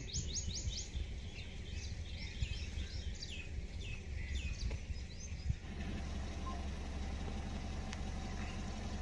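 Birds calling outdoors: a quick series of high, downward-sweeping chirps through the first half, thinning out after that. Under them runs a low rumble that becomes steadier about halfway through.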